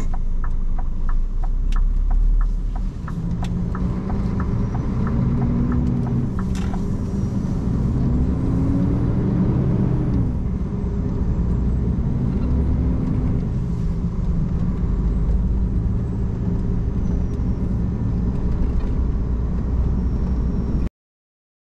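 Scania truck's diesel engine heard from inside the cab, pulling away and running up and down through the gears. A rapid, even ticking sounds for the first three seconds, and there is a short hiss about six seconds in. The sound cuts off suddenly just before the end.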